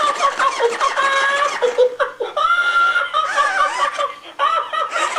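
Tickle Me Elmo TMX toy laughing on and on in Elmo's high-pitched voice.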